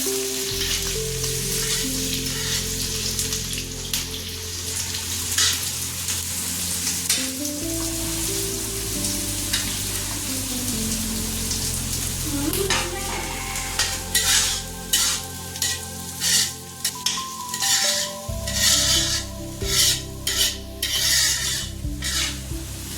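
Food sizzling and frying in an iron kadhai. From about halfway through, a spatula stirs and scrapes against the pan at about two strokes a second.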